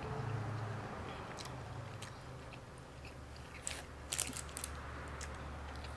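A person chewing a mouthful of food close to the microphone, with a quick run of wet, crunchy mouth clicks about four seconds in.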